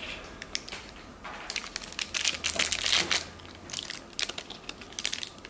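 Crinkly toy wrapper crumpling and crackling as a capuchin monkey picks at it with its hands: a string of irregular, sharp crackles.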